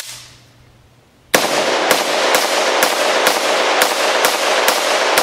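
Unsuppressed short-barreled AR-15 in .300 Blackout firing supersonic 125-grain Remington ammunition: one shot at the very start, then after a second's pause a rapid string of about nine shots, roughly two a second. The ringing echoes of the shots fill the gaps between them.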